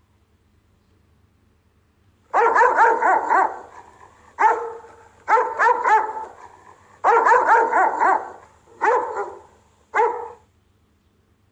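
Rottweiler giving guard barks, starting about two seconds in: six volleys of several quick barks each, with short gaps between, the last volley brief.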